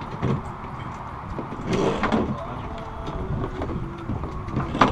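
Knocks and clatter of fishing gear against an aluminum boat as a tangled line and a landing net are handled, with one sharp knock near the end. A steady low rumble runs underneath, with brief muffled voices.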